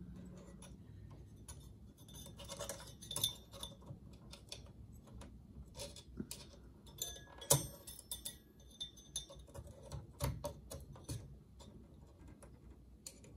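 Screwdriver tip pressing and levering a metal heatsink retaining clip on a Power Mac G4 Quicksilver, making irregular small metallic clicks and taps, the sharpest about seven and a half seconds in.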